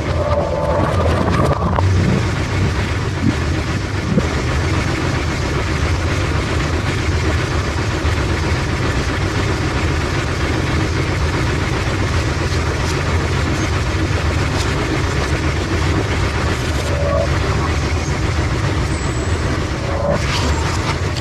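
Bowling pinsetter machinery running with a steady, loud mechanical rumble, with a single sharp knock about four seconds in.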